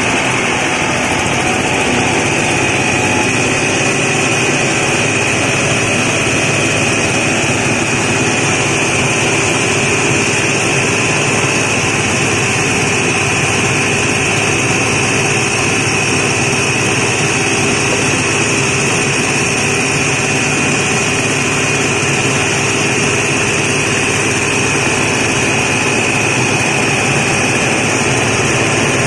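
Husk and bran grinding mill running under load, driven by a small engine, as rice husk and bran are fed in to be ground into fine bran. A loud, steady mechanical drone with a constant high whine.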